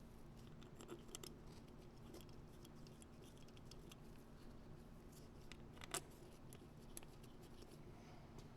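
Faint scattered clicks and light ticks of small carburetor parts and screws being handled as the plastic top cap goes back on over the slide, with one sharper click about six seconds in, over a faint steady hum.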